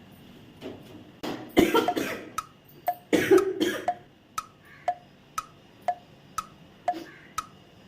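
A person coughing in two loud bouts, set off by the pungent smoke of dried red chillies being fried. After that comes a regular light clicking about twice a second.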